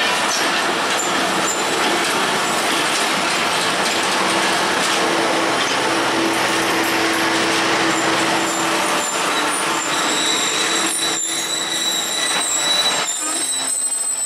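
Passenger train coaches rolling past on the adjacent track: a steady, dense rumble and rattle of wheels on rails. A thin high whine joins about ten seconds in, and the low rumble drops away suddenly near the end.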